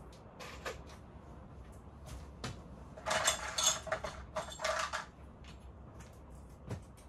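Tools and small hardware being rummaged through and picked up: scattered light knocks and clicks, with about two seconds of rattling clatter in the middle.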